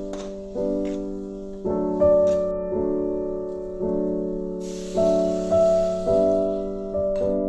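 Background piano music: soft chords struck about once a second, each ringing and fading away.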